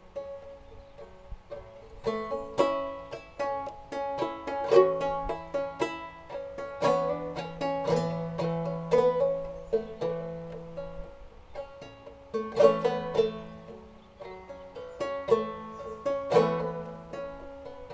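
Five-string banjo played clawhammer style: an instrumental passage of plucked melody notes over a ringing lower note. The banjo is in double-C tuning with the fifth string dropped to e, pitched down to about c#AEAB.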